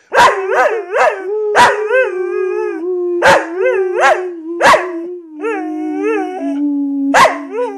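Australian shepherd howling along in a string of short yelping howls, each rising and falling in pitch, about a dozen in all, over a long held note that slowly steps down in pitch.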